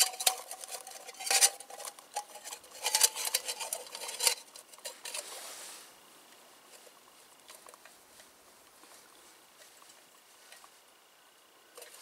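Metal clinks, scrapes and brief ringing from a Fire-Maple canister stove's cookpot and lid being handled, clattering for about the first half, then only faint small handling sounds.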